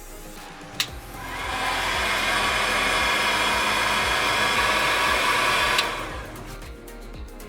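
Handheld electric power tool switched on with a click, spinning up with a rising whine, running steadily for about five seconds, then switched off with a click and winding down.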